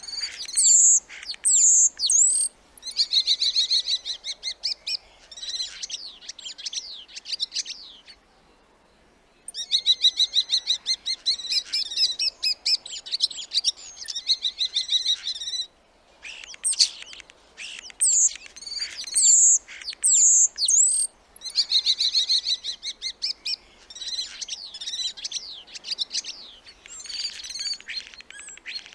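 Starling singing: a busy mix of sweeping whistles and fast clicking rattles, with a brief pause about eight seconds in.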